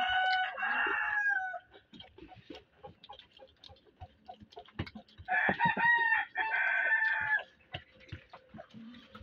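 A rooster crowing twice: one crow at the start and another about five seconds in, each a long pitched call of about two seconds. Faint clicks and taps come between the crows.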